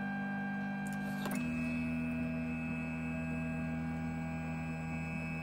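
Flashforge Dreamer NX 3D printer running its bed-leveling routine: a steady motor hum made of several tones as the build plate moves up. The pitch of the hum shifts with a faint click a little over a second in.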